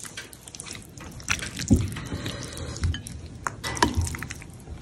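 Chopsticks tossing sauce-coated wide hand-pulled noodles in a bowl: irregular wet squishing and sticky smacks, with a few dull thuds.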